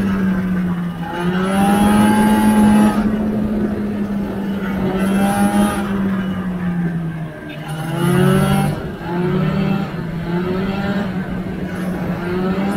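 Vintage two-stroke snowmobile engine running under way along a trail, its revs rising and falling repeatedly as the throttle is worked.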